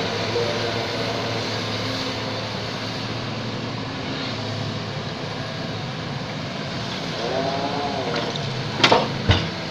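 Excavator's diesel engine running steadily under work, its pitch briefly rising and falling about three-quarters of the way through, then two loud sharp clanks about half a second apart near the end.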